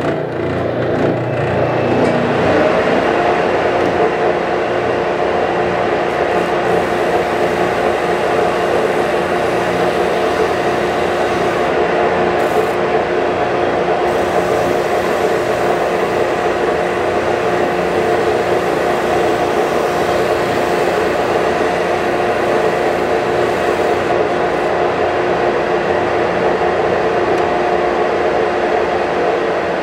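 Shop vacuum running for dust collection, switched on just as the sound begins and coming up to speed over the first couple of seconds, then a steady drone. Under it, a Ridgid EB4424 oscillating spindle sander runs with a walnut piece held against its sanding sleeve.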